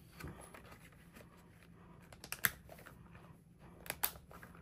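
Handling of a disc-bound paper planner: a few sharp clicks and taps of the pages and covers moving on the discs, with a faint rustle of paper.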